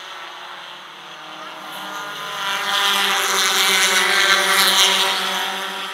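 Four-cylinder stock car engines running at racing speed. One car passes close by, growing louder from about two seconds in, then fading near the end.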